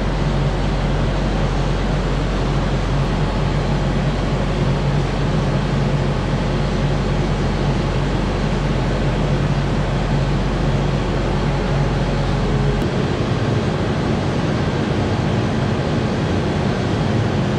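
Link-Belt 210 excavator's diesel engine running steadily as the boom hydraulics lift the hydraulic thumb on a chain. The deepest part of the low hum drops out about thirteen seconds in.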